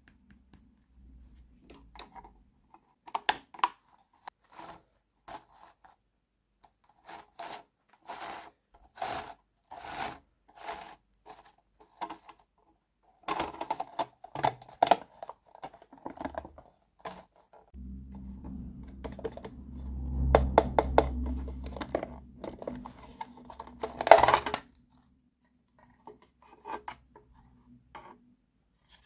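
Small plastic toy kitchen pieces being handled and set down: a run of light clicks and taps, growing busier partway through. For several seconds in the second half a steady low hum sounds under the clicks, then stops.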